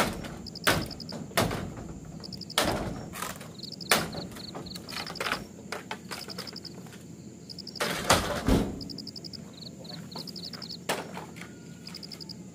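A dozen or so sharp, irregular knocks, loudest as a close cluster about eight seconds in. Insects chirp behind them in short pulsed trills, over and over.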